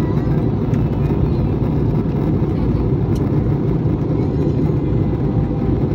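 Steady low rumble of an Airbus A321 in flight on its landing approach, the engines and rushing air heard from inside the passenger cabin.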